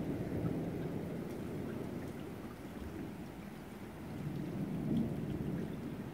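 Rolling thunder rumbling over steady rain. The rumble swells just as it begins and again about four to five seconds in.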